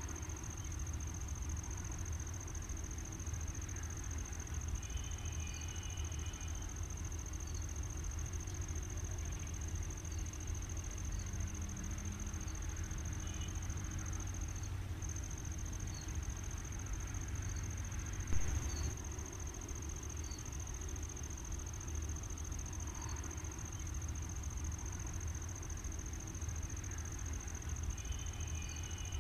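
Insects, crickets by their sound, keep up a steady high-pitched chirring throughout, over a low rumble. Faint short chirps come every second or two, and a single brief knock sounds about eighteen seconds in.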